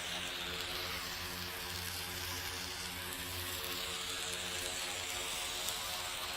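Burning emergency flare sizzling steadily inside metal tubing: a constant hiss with a metallic, humming ring from the surrounding tube.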